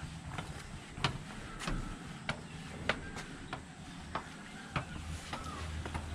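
Footsteps climbing steep concrete steps, a sharp step about every 0.6 seconds.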